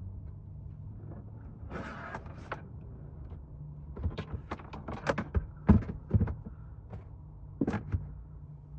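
Clatter of cookware and cabinets being handled in a small van kitchen. A rustling scrape comes about two seconds in, then a run of sharp knocks and clicks in the middle and one more clatter near the end, over a low steady hum.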